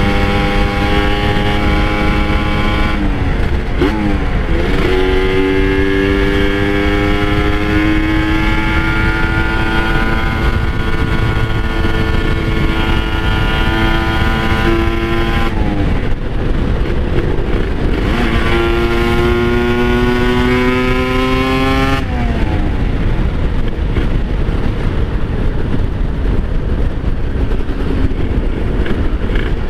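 Kawasaki Ninja RR two-stroke single-cylinder motorcycle engine pulling under way, its pitch climbing slowly and dropping sharply three times, at about 3, 15 and 22 seconds in, as it shifts or comes off the throttle. After the last drop the engine tone fades out beneath steady wind rush.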